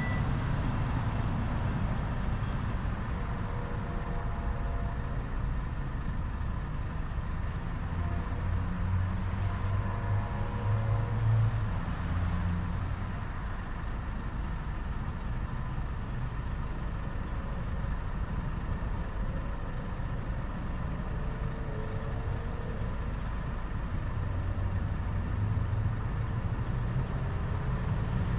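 Steady road traffic, with cars and trucks driving past one after another and swelling louder as the heavier ones go by.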